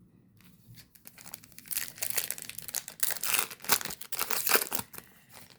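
Foil wrapper of a Topps baseball card pack being torn open and crinkled: a dense crackling that starts about a second and a half in and stops near the end.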